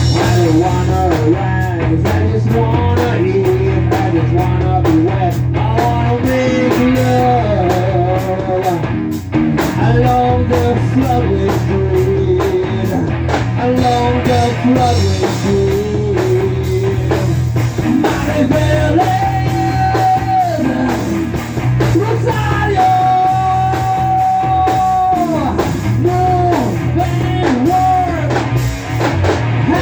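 Rock band playing a grunge song: bass and drum kit under a melodic lead line with bent, held notes.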